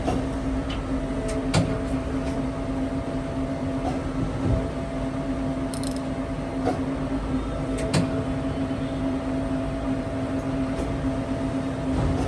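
Mori Seiki SL-6 CNC lathe running, a steady mechanical hum with a constant low tone, broken by a few sharp clicks and knocks.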